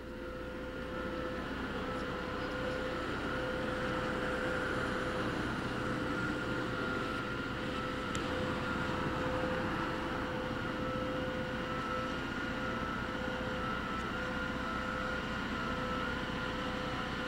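Steady machinery drone: a constant hum with a higher steady whine over a wash of noise, swelling in over the first couple of seconds and then holding level.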